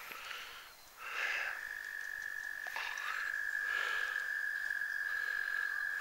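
A frog trilling: one long, steady, high-pitched trill that starts about a second in and carries on without a break.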